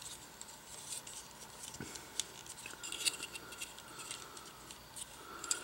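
Faint scattered clicks and taps of a plastic transforming action figure being handled and turned in the hands.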